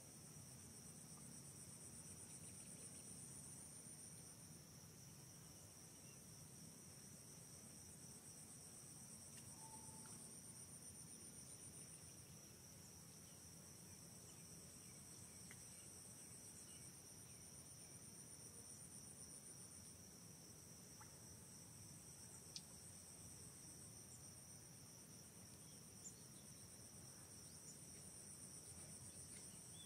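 Faint outdoor insect chorus: steady high-pitched trilling, with a higher trill that swells and fades in long phrases of a few seconds each. Two light ticks come in the last third.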